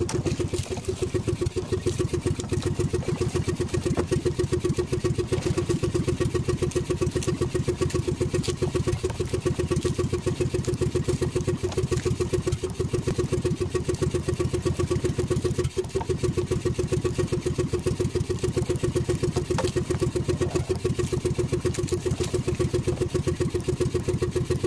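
Small outrigger fishing boat's engine idling with a steady, fast putter.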